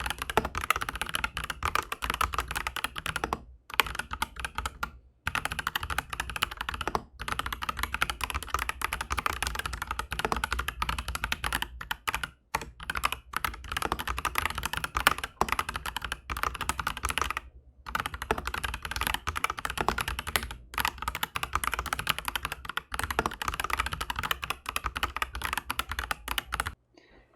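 Continuous fast typing on an Aflion AF82 mechanical keyboard fitted with Aflion Shadow tactile switches on an FR-4 plate. The keystrokes run in quick runs broken by a few short pauses and stop shortly before the end.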